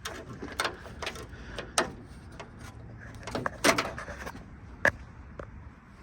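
Scattered sharp clicks and knocks of hand work on parts under a pickup truck's hood, the loudest a little past halfway.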